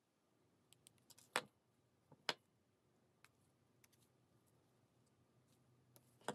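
A few sharp clicks of jewellery pliers working fine gold-fill wire, over near silence: a couple of faint ticks, two louder clicks about a second and a half and two seconds in, and another at the very end.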